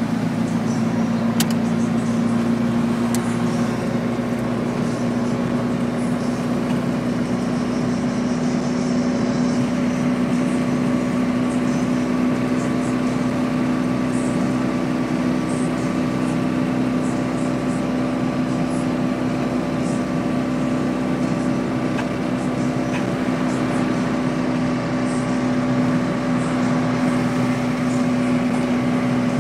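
Fiat 126p's rear-mounted air-cooled two-cylinder engine running at a steady highway cruise, heard from inside the cabin as an even, unchanging hum over road noise.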